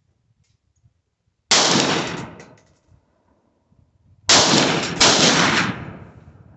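Three shots from a .223 AR-15-style rifle: a single shot, then a pause of nearly three seconds, then two quick shots less than a second apart. Each shot cracks loudly and rings out for about a second.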